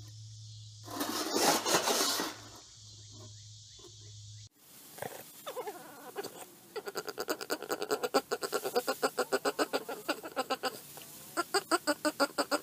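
A dog eating dry kibble from a steel bowl over a steady low hum, then a Boston terrier making rapid, rhythmic vocal pulses, about four a second, in two long runs.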